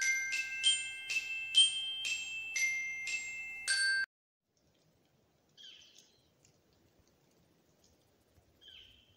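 Chiming intro jingle of about eight struck, bell-like mallet notes that ring on and overlap, cutting off suddenly about four seconds in. Then faint outdoor quiet with two short, high chirps.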